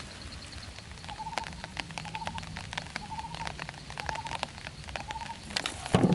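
An animal gives short trilled calls over and over, about once a second, starting about a second in, among scattered crackling ticks. A single loud thump comes just before the end.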